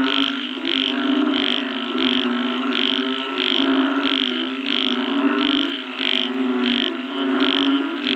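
A chorus of frogs calling: a steady low droning chorus, with a higher-pitched call pulsing evenly about twice a second over it.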